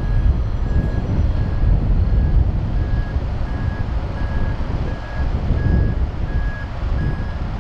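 A vehicle's reversing alarm beeps at an even pace, a little under two beeps a second, over a steady low rumble.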